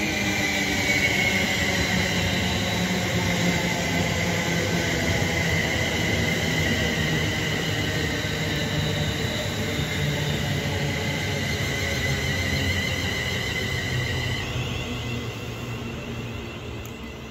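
Electric multiple unit passenger train running past on the rails: a steady rumble of wheels with a high whine that falls slowly in pitch. The whine stops abruptly about fourteen seconds in, and the sound fades as the train draws away.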